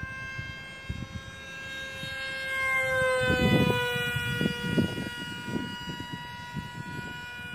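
High steady whine of an RC model jet's motor in flight, dipping slightly in pitch about three seconds in. Gusts of wind rumble on the microphone and are loudest in the middle.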